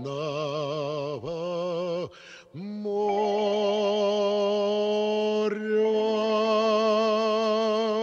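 Song with a male singer holding long notes with vibrato: two shorter notes, a brief drop, then one long note held from about three seconds in.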